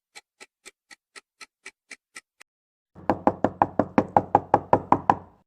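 Rapid knocking on a door. A faint run of even raps, about four a second, is followed about three seconds in by a louder, quicker run of knocks.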